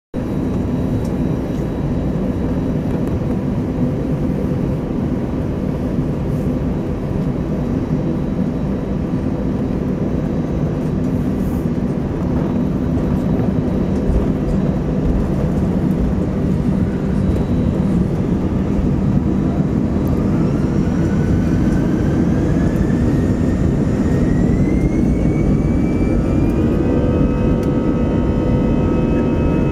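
Airbus A320's jet engines heard from inside the cabin: a steady low rumble while taxiing. About two-thirds of the way through, the engines spool up for the takeoff roll, and a whine climbs in pitch, then settles into steady high tones near the end.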